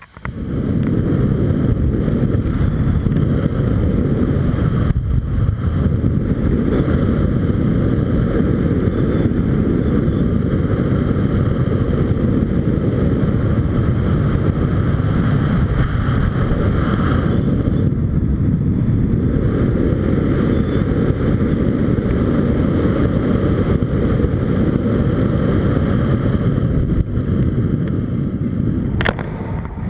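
Steady loud rush of wind buffeting the microphone in fast speed-wing flight, a deep, even roar of airflow that eases briefly near the end.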